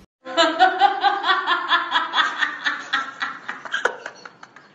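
A woman laughing hard in a quick run of high-pitched 'ha' pulses, about four a second, trailing off near the end.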